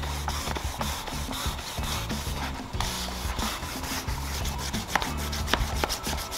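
Small sanding pad rubbed back and forth by hand over the varnished wood veneer of a Jaguar XJ6 glove-box panel, in repeated strokes. The varnish is being sanded flat to take out high and low spots before buffing.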